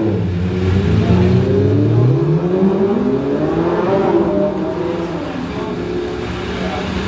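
A passing road vehicle's engine accelerating: its pitch climbs for about two seconds, then drops and settles as it eases off, over steady street noise.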